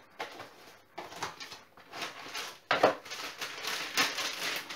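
Cardboard box of frozen chicken burgers being torn open with a series of short rips, a sharper one a little under 3 s in, then the burgers' plastic wrapping crinkling as they are pulled out.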